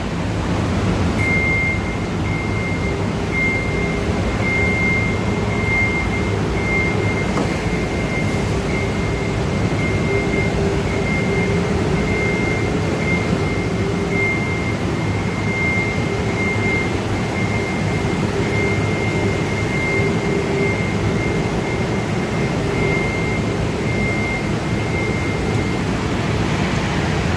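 Steady drone of industrial mechanical-room machinery, with a thin, high, steady whine from a one-man personnel lift running as it travels up; the whine cuts off near the end.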